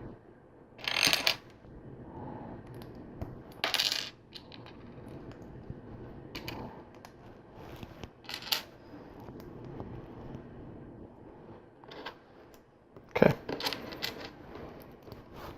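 Small plastic LEGO pieces rattling and clicking against each other in four short bursts, spaced a couple of seconds apart.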